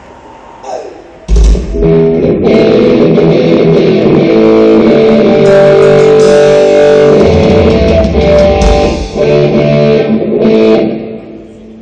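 Rock band's sound check: loud amplified electric guitar and bass playing. It starts with a sudden low hit about a second in and drops away near the end.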